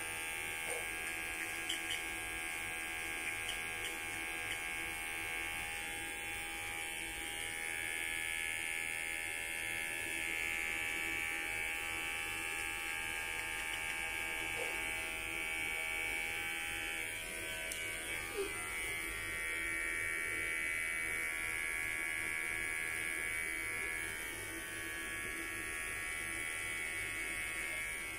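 Cordless electric hair clippers running with a steady buzz while trimming the hair on the sides of the head around the ear.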